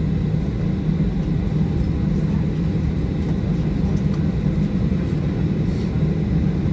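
Steady low rumble heard inside the cabin of a Boeing 737-800 taxiing after landing: its CFM56-7B engines at idle and the aircraft rolling along the taxiway.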